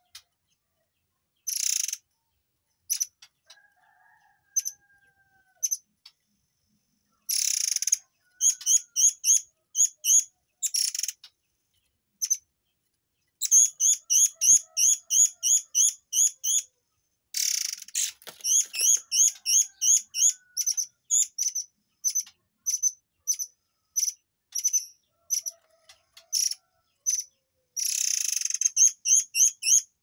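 Caged murai air (the 'air mancur' bird) singing: runs of sharp, quick chirping notes at about three a second, broken by several short harsh rasping bursts.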